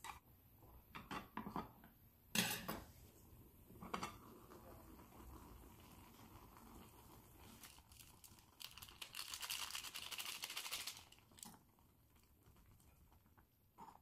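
A camping pot lid clacks as it is lifted off a pot of boiling ramyeon, with a sharp knock about two seconds in. Later there are a few seconds of crinkling and rustling as the ramyeon soup-powder packet is opened and emptied over the pot.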